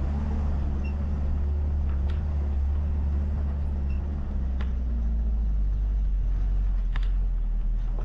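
Car engine running at low speed on a dirt road, heard from a camera on the roof, with a few short sharp ticks. The engine note drops to a lower pitch about halfway through.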